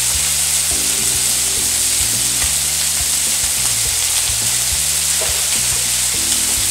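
Tilapia fillets and a pan of zucchini and red pepper sizzling steadily as they fry, a constant hiss, with background music playing low notes underneath.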